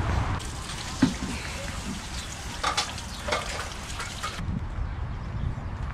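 Tap water running into a plastic watering can at an outdoor sink, a steady splashing hiss that cuts off suddenly about four seconds in as the tap is shut. A single sharp knock about a second in.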